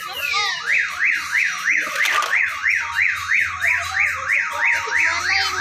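Electronic alarm siren warbling, its pitch rising and falling about three times a second, after a brief switch from a pattern of falling whoops.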